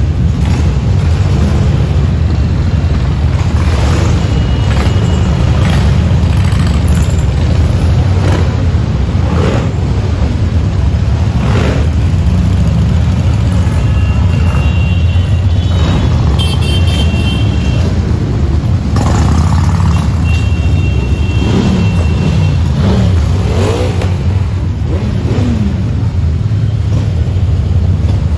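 A stream of cruiser motorcycles and scooters rides past at low speed in a deep, steady rumble of engines, with individual bikes revving as they go by. A few short high-pitched beeps come midway.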